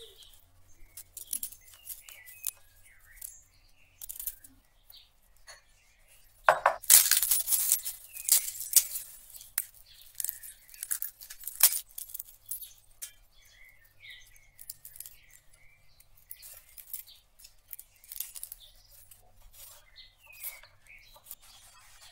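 A kitchen knife tapping as it cuts pork belly on a plastic cutting board. From about six seconds in comes a loud run of dry, papery crackling and rustling as garlic cloves are peeled with a small knife over a plastic bin bag, followed by scattered lighter clicks.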